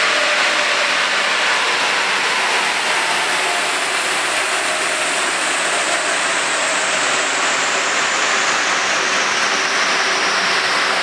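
Steady rushing noise from the chassis dyno and the Ford XR5 Turbo as a power run ends, with no clear engine note. The level eases slightly at the start, then holds.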